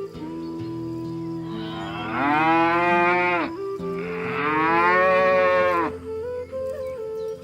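Cow mooing twice: two long, loud calls, the second longer, over soft background music.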